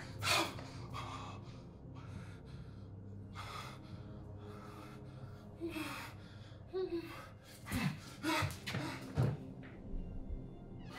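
A woman gasping and breathing hard in panic, in short ragged breaths, with a few brief whimpering cries in the middle, over a low steady hum.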